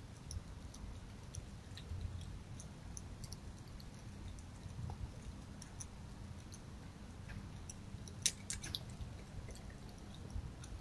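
A red fox eating from a bowl: faint chewing with scattered small clicks over a low background rumble, and a short run of louder clicks near the end.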